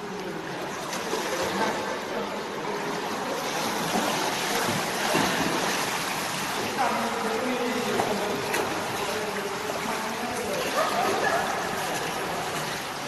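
Steady running water, with indistinct voices now and then.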